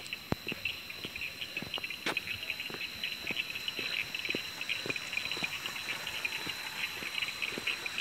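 Crickets and other night insects chirping densely over a steady high drone, with irregular footsteps on a dirt track.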